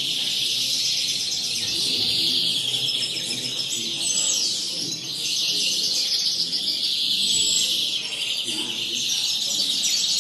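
Several caged European greenfinches singing at once: a continuous, dense chorus of high, rapid twittering trills with no pause.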